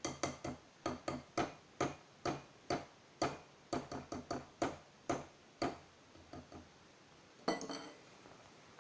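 A mixing utensil clinking against the side of a bowl as cake batter is stirred, at about two to three clicks a second, slowing and stopping about six seconds in. A short clatter follows near the end.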